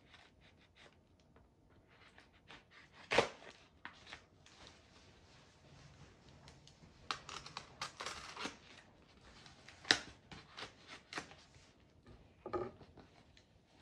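A knife slitting and scraping along the taped flap of a cardboard parcel, with irregular scratchy strokes and tearing of cardboard and tape. Two sharp knocks stand out, one about three seconds in and a louder click about two-thirds of the way through.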